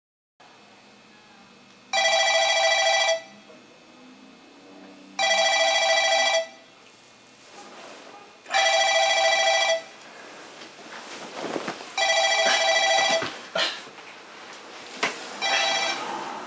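A phone ringing: five rings about three and a half seconds apart, each a steady electronic tone a little over a second long, the fifth one shorter. Between the later rings come rustles of bedding and movement.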